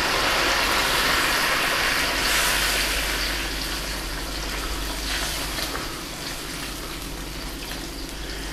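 Water pouring in a steady stream from a jug into a hot wok of fried pork trotters and sauce, splashing into the liquid. It is loudest for the first few seconds, then a little softer.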